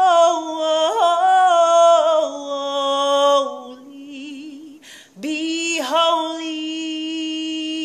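A woman's solo voice singing unaccompanied, drawing the melody out in long held notes with vibrato. The voice drops away briefly just before the middle, then returns with one long held note.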